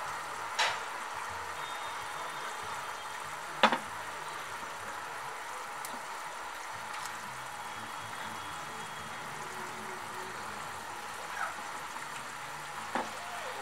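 Korma gravy boiling in a wide pan: a steady bubbling hiss as the fried masala and added water come to the boil. A few short clicks break it, one near the start, one about four seconds in and one near the end.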